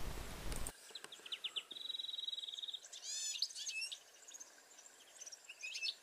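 European greenfinch singing: a few short notes, then a rapid even trill lasting about a second, followed by quick falling sweeps and scattered twittering.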